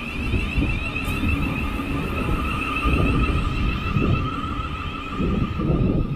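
Thameslink Class 700 electric multiple unit pulling out of the station: a steady two-tone whine over an uneven low rumble of wheels on rail, the rumble swelling now and then as the carriages go by.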